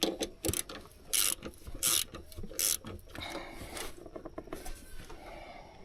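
Ratchet wrench clicking in a few short runs of strokes as a bolt is turned, then fainter rasping clicks.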